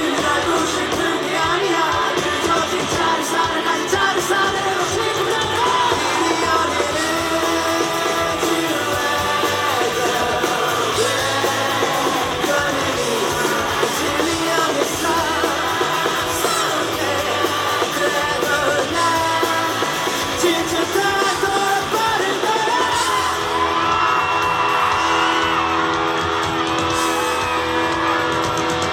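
Live pop-rock band playing with a male lead vocal singing over it.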